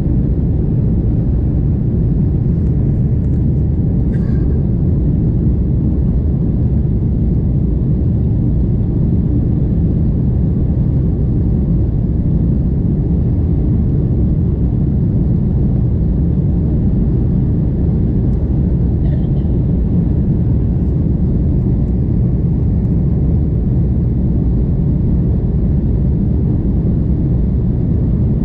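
Airliner's jet engines at climb power heard inside the cabin: a steady low rumble just after take-off.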